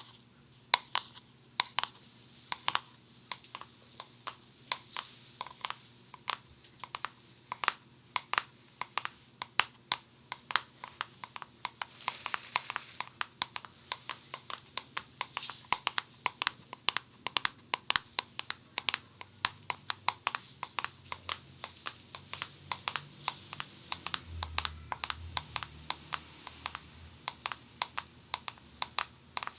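Quick, irregular tapping on a Funny Foam box, several sharp taps a second.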